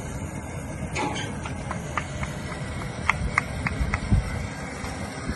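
A run of light metallic clinks, about three a second, over a steady low rumble, with a dull thump just after the clinks stop.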